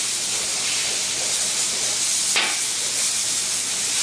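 Filet mignon steaks sizzling steadily as they sear on a very hot flat-top griddle. A steel spatula makes a brief sound on the griddle surface about two and a half seconds in.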